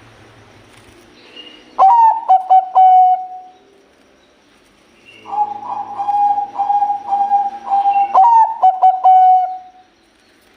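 Bangkok-type perkutut (zebra dove) singing its cooing song in two phrases: a short one about two seconds in and a longer, rolling one from about five seconds to near the end, each a run of clipped low coos.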